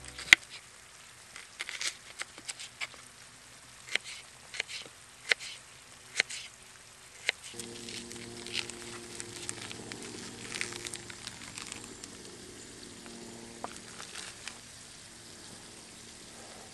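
Kitchen knife chopping red onion on a wooden board: sharp, irregular taps of the blade against the wood. After about seven seconds the taps thin out into quieter handling and cutting sounds, and a low steady hum comes in underneath.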